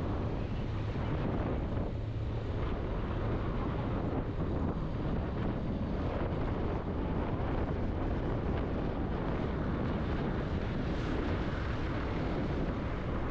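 Steady wind noise on the microphone over the road and engine noise of a Yamaha Aerox scooter being ridden.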